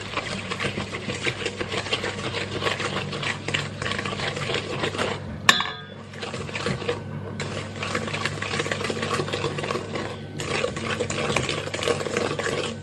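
A whisk beating egg, sugar and melted butter batter in a stainless steel bowl: fast, continuous scraping and clicking of the wires against the metal, with one sharp clink about five and a half seconds in and short lulls just after six and about ten seconds in.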